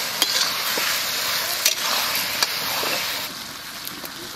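Meat curry sizzling as it is fried down in mustard oil in a steel pan, with a spatula scraping and knocking against the pan a few times. The sizzle drops off about three seconds in.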